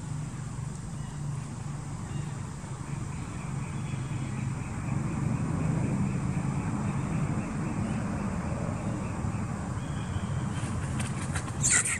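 A motorbike engine passing on a nearby road: a steady low hum that grows louder to a peak around the middle and then eases off. A brief high-pitched sound comes near the end.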